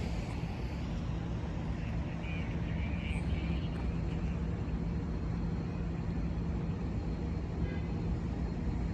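Diesel engine of a GE Dash 8-40BW locomotive running steadily, a low drone with a steady hum. Faint brief high squeaks come through a few seconds in and again near the end.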